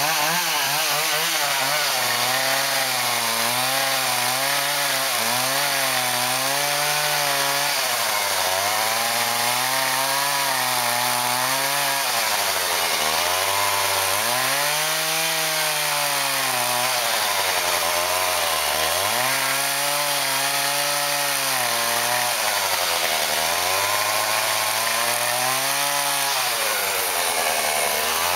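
Two-stroke chainsaw cutting into a block of Western Red Cedar, the engine's pitch sagging and rising again over and over as the chain bites into the wood and frees up. A few deeper dips, about 13, 19, 23 and 26 seconds in, are where it bogs under load.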